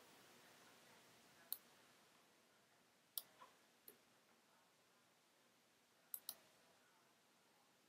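Faint, sharp computer mouse clicks over near-silent room tone: one about a second and a half in, three between about three and four seconds, and a quick double click around six seconds.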